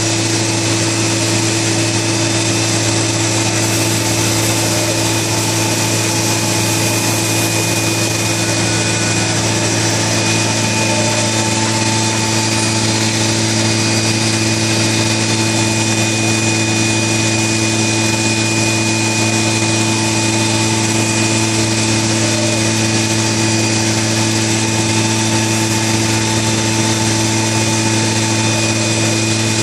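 Yuan Lung YL-15302-R+B CNC router machining a wood panel: the spindles and cutters run steadily, a continuous mechanical hum with a high steady whine over it.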